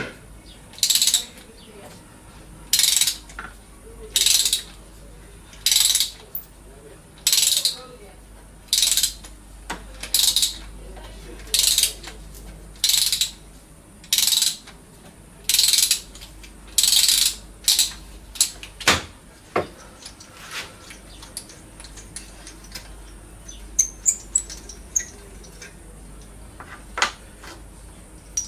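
Ratchet wrench being worked on a bolt: about a dozen short ratcheting back-strokes, one every second and a half or so. After about eighteen seconds the ratcheting stops, and a few sharp metal clicks and light ticks follow.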